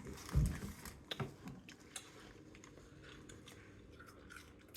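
A person chewing quietly, with a few small scattered clicks and a soft low thump about half a second in.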